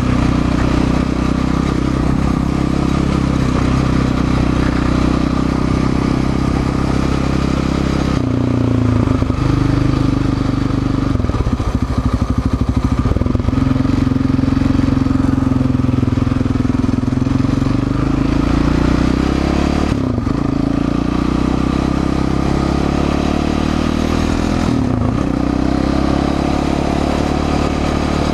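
Yamaha Raptor 700 quad's single-cylinder four-stroke engine running under way on a dirt track, its pitch stepping down and back up several times as the throttle and gears change.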